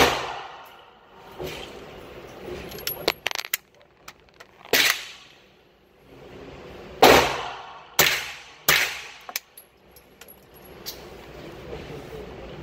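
Suppressed CZ Scorpion EVO pistol firing single shots: five sharp reports at uneven intervals. The first comes right at the start, and three follow close together about two-thirds through, with lighter clicks and knocks in between.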